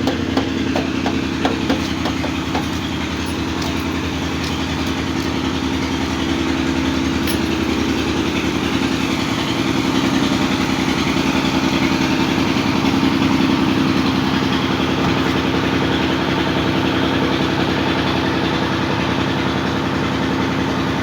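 Small motorcycle engine running steadily, picking up a little for a few seconds around the middle.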